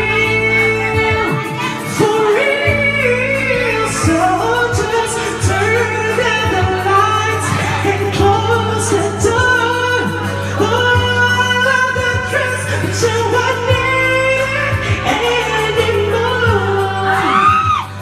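A man singing karaoke into a handheld microphone over a music backing track, his voice amplified over a steady bass line.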